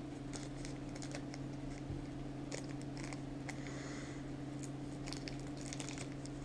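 Faint crinkling and clicking of small zip-top plastic bags being handled and pulled open by hand, over a steady low hum.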